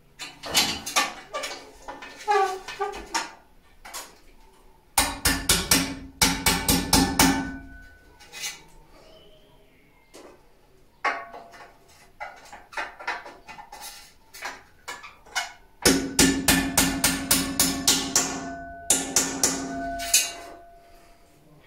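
Hammer striking a steel punch against a metal sliding-door rail: runs of quick blows, several a second, with short pauses between runs, and a metallic ringing under the heavier runs.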